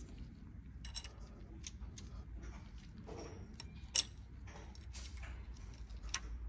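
Metal balance-shaft drive chain clicking and rattling lightly as it is fitted by hand over the sprockets of an engine. There are scattered small ticks, with one sharper click about four seconds in.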